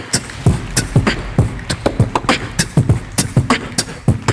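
Drum beat of walk-on music: low kick-drum thumps with sharp hits, about three to four a second.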